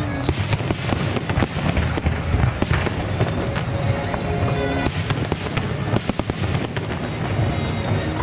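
Aerial firework shells bursting in a rapid, irregular string of sharp bangs and crackles over a rolling low rumble.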